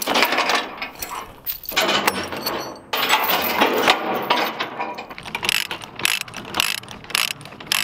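Steel log chain rattling over the logs, then a ratchet load binder being cranked to tighten the chain, a fast run of ratchet clicks in the second half.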